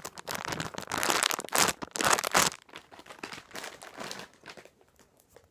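Plastic packaging crinkling as it is handled, loudest in the first half and trailing off after about two and a half seconds.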